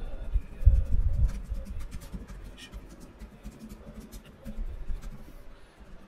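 Typing on a computer keyboard: quick, irregular key clicks, with a few dull low thumps in the first second or so.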